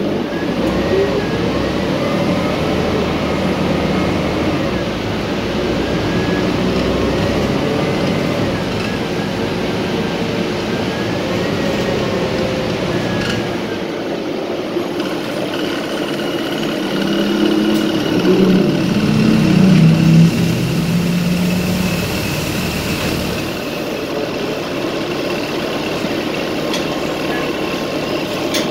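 City transit bus heard from inside the passenger cabin: the engine and road noise of the bus underway, with tones that rise and fall as it drives, and a louder humming tone for a few seconds past the middle.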